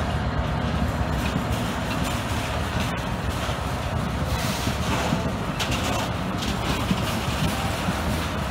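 Class 66 diesel freight locomotive's engine running with a steady low drone as it pulls away along the track.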